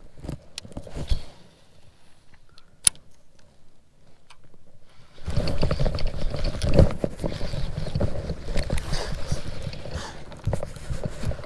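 Light clicks and knocks of fishing tackle handled aboard a plastic kayak, with one sharp click about three seconds in. About five seconds in a continuous rushing, rumbling noise starts and runs on while a hooked bass is reeled toward the kayak.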